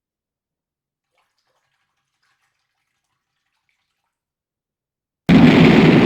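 Silence, then about five seconds in, a sudden loud rush of running water, like a tap or bath filling, starts and carries on.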